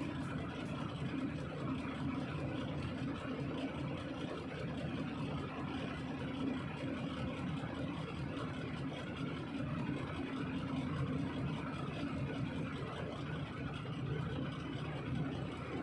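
Large diesel engine running steadily at an even speed.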